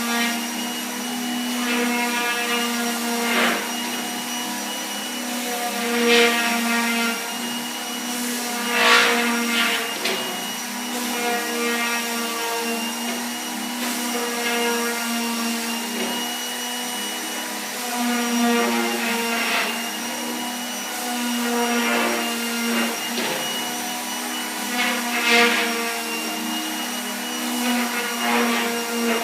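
Electric power sander running steadily on wood, its motor holding a constant hum while a louder, hissier swell rises every two to three seconds.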